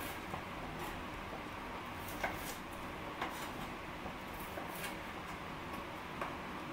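Kitchen knife cutting through small peeled onions and tapping a wooden cutting board: a handful of sharp, irregular knocks a second or so apart over a steady low background noise.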